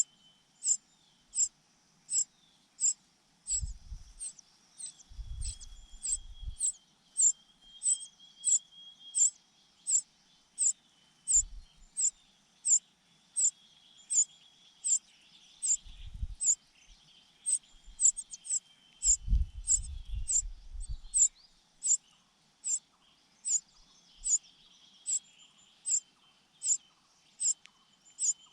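A bird's short, sharp, very high call repeated at a steady pace, about three every two seconds. A fainter drawn-out whistle sounds behind it, and there are a few low thumps.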